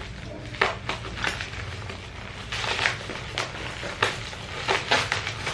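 Scissors cutting into a parcel wrapped in plastic and brown packing tape: a series of sharp snips and crinkling plastic, with a longer rustle near the middle.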